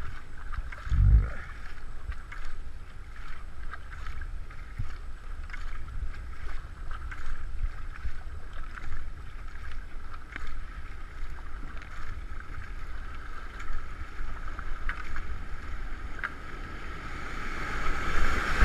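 Kayak paddles dipping and splashing in a steady rhythm, with water rushing past the hull and wind buffeting the microphone. There is a low thump about a second in, and the rush of a whitewater rapid swells near the end.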